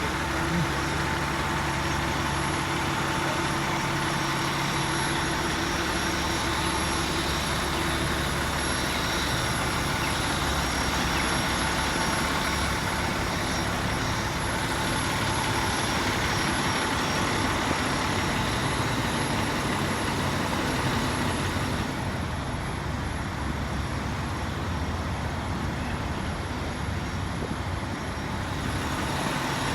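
Large vehicle engine idling steadily, a low hum under general street noise.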